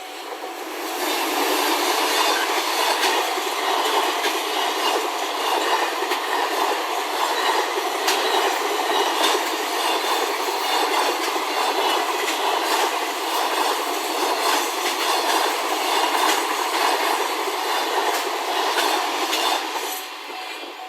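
Container freight train hauled by an EH500 electric locomotive passing at speed: a loud, steady rush of wheels on rail with many sharp clicks over the rail joints. It builds about a second in and drops off just before the end as the last car goes by.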